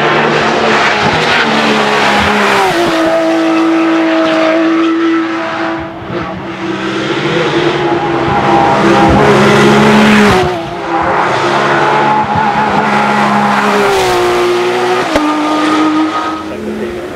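Porsche 997 GT3 Cup race car's naturally aspirated flat-six engine running hard at high revs under load, loud throughout. The engine note drops sharply in pitch about three times along the way, near the start, about two-thirds through and near the end.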